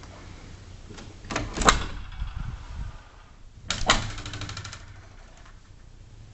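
Louvered bifold closet doors being pulled open, with two clattering bursts of knocks about two seconds apart. The second burst is followed by a short rattle.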